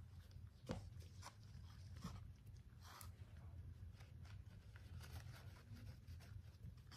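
Near silence with a low steady hum and a handful of faint light taps and scratchy brushing sounds from hand work with craft materials; the sharpest tap comes about a second in.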